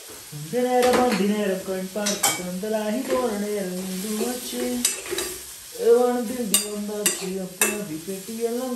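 A metal spoon stirs food frying in a steel wok, clinking against the pan several times over a faint frying sizzle. A man hums a wordless tune over it, holding and sliding between notes.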